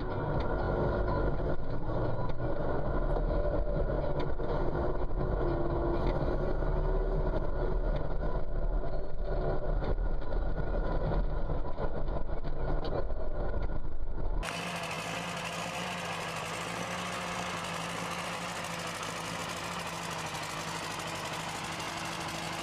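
Tractor engine running steadily, heard from inside the cab as a deep drone. About two-thirds of the way through it cuts abruptly to a different, thinner engine sound with more hiss: a small vintage tractor running.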